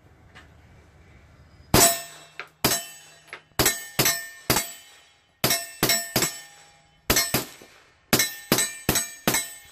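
Sig Sauer P226 Legion single-action-only 9mm pistol with a Gemtech GM9 suppressor firing 147-grain subsonic rounds: about sixteen suppressed shots in quick strings of two to four. Each shot is a sharp crack with a short metallic ring.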